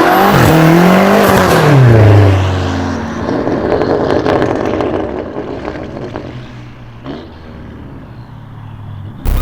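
High-performance car engine revving, its pitch rising then falling, followed by a run of crackles and pops from the exhaust, then settling to a lower steady running note. A brief loud burst comes near the end.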